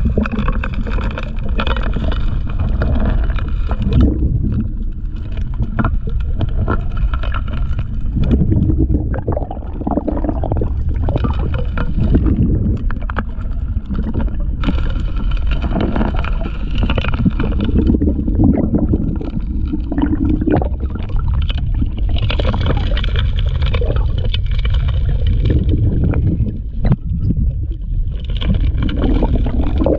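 Underwater sound of a four-inch gold suction dredge working the stream bed: a steady low drone from the dredge's motor and pump carried through the water, with scattered knocks of stones rattling into the intake nozzle. It is muffled by the camera's underwater housing.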